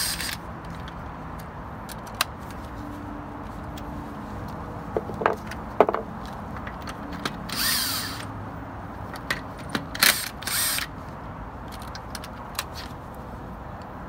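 Cordless impact driver with a half-inch socket spinning 19 mm wheel lug nuts off in two short bursts, about eight and ten seconds in, the first winding down in pitch. A few sharp clicks come between the bursts.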